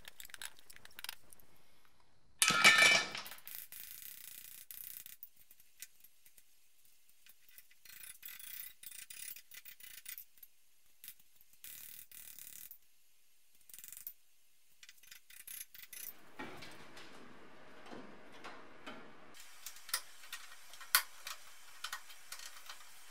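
Hand metalwork on a thin sheet-steel patch panel: aviation snips cutting the steel, with a loud short crunch about two and a half seconds in, then scattered clicks and scrapes of handling. Near the end, rustling handling and a sharp click as magnetic clamps hold the patch against the car's body.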